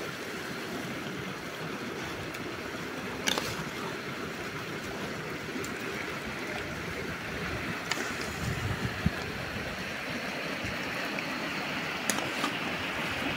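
A river flowing in a steady rushing stream, with a few short clicks over it.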